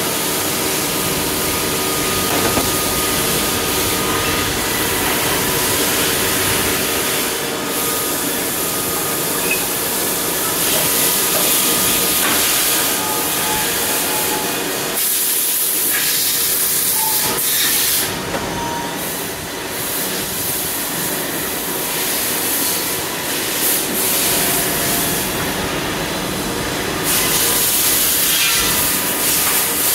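Machine-shop noise from CNC lathes running: a loud, steady hiss with a few steady tones through it, which dips briefly about halfway through.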